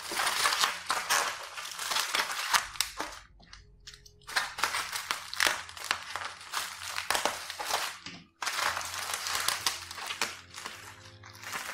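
Plastic bubble wrap crinkling and crumpling as it is cut open and pulled off a boxed book, in a run of handling bursts with a short lull about three seconds in.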